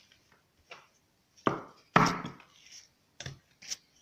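Rolling pin working dough on a table: a few irregular soft thuds and knocks, the two loudest near the middle.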